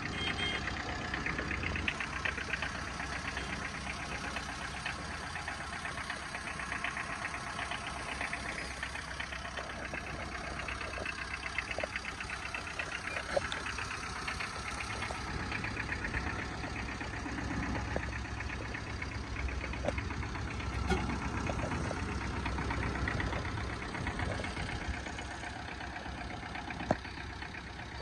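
Tata Ace mini tipper truck's engine idling steadily with a fast, even clatter. A few sharp clicks are scattered through it.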